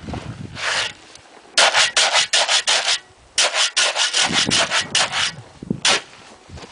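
Wet concrete with gravel being mixed by hand: rapid gritty scraping strokes, several a second, in two long runs with a short pause between them.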